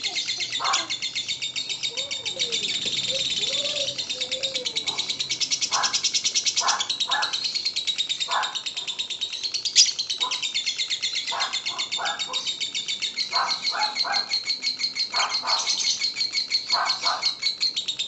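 Lovebird singing its long, unbroken, rapid chattering song (the trill that keepers call ngekek), with shorter lower chirps dropped in every second or so and one sharp squeak about ten seconds in.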